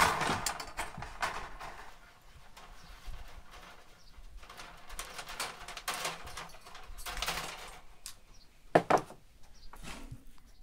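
Knife and hands working roasted meat on a foil-covered table: brief rustles and scrapes, with a sharp knock at the start and two more close together near the end.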